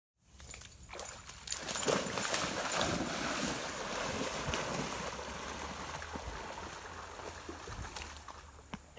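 An Irish Setter splashing as it plunges and swims through fast-flowing creek water, over the rush of the current. The splashing is loudest two to three seconds in and eases off toward the end.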